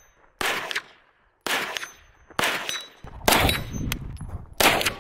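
CZ Scorpion EVO 3 S1 9mm pistol fired five times in slow semi-automatic fire, about one shot a second. Each shot trails off in an echo, and a brief high ring follows some of them.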